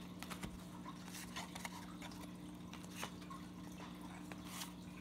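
Faint ticks and flicks of baseball trading cards being handled and flipped through, scattered irregularly, over a steady low hum.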